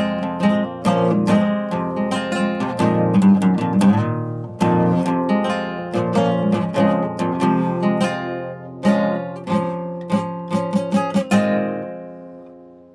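Acoustic guitar being played, strummed and picked chords with ringing notes. A last chord about two seconds before the end rings out and fades away.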